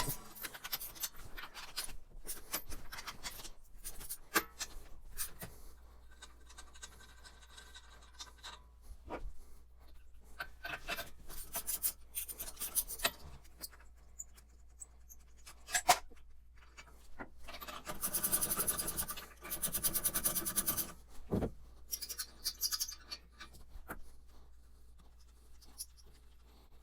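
Socket wrench with an extension working the manifold nuts on a Ford Model A engine, sped up: quick scattered clicks, scrapes and metal clinks, with a denser, louder run of rapid clicking about two-thirds of the way through.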